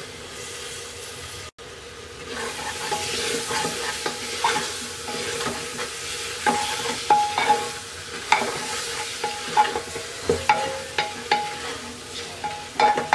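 Chopped tomatoes frying in oil and spices in an aluminium pressure cooker, sizzling steadily while a spatula stirs them. The spatula scrapes and knocks against the pot's metal sides over and over, with short ringing clinks. The stirring starts about two seconds in.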